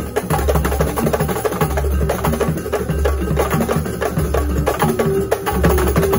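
Kuntulan percussion ensemble playing: many hand-struck frame drums in a fast, dense interlocking rhythm over the deep booms of large double-headed barrel drums.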